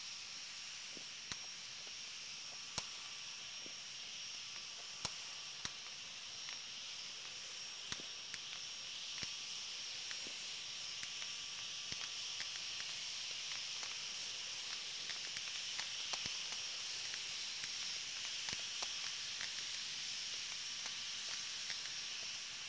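Distant fireworks popping sporadically, a dozen or so sharp single pops at irregular intervals, over a steady high-pitched hiss.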